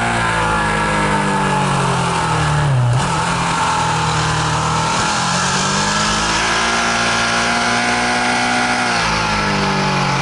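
Ducati 1299 Panigale S's 1285 cc Superquadro V-twin running hard on track: the engine note drops until about three seconds in as the bike slows, then climbs steadily as it accelerates, and falls again near the end.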